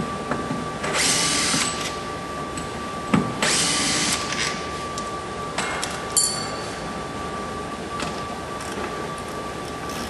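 Cordless drill/driver whirring in two short runs as it backs out fasteners holding a car door's component housing, with a few clicks and a light metallic clink about six seconds in.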